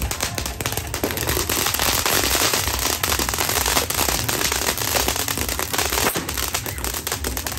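Ground fountain fireworks (a star fountain and a crackling Flame of Recca fountain) spraying sparks with a continuous hiss and dense crackling. It is busiest and brightest in the middle.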